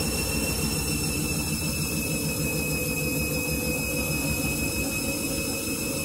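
Candy front-loading washing machine spinning a load of bathrobes at high speed: a steady high motor whine over the rumble of the drum. Right at the end the whine begins to drop as the spin is cut back, which the owner puts down to a suds lock.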